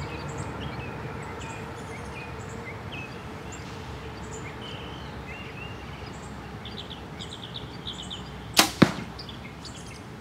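Compound bow shot: a sharp snap of the string at release, followed about a quarter second later by the smack of the arrow striking a foam bag target. The two loud strikes come near the end.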